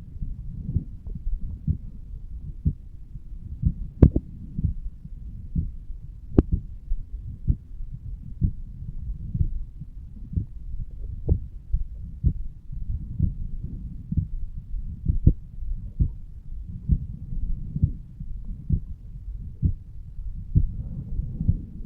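A human heartbeat recorded on the chest over the aortic valve area: a steady run of low, dull thumps, with a soft whoosh between them that the uploader hears as blood flowing through the heart. Two sharp clicks stand out, about four and six seconds in.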